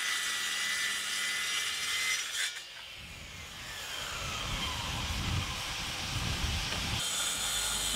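Compact circular saw cutting through a plywood sheet. The cut ends about two and a half seconds in, and the blade then spins down with a falling whine over a low rumble.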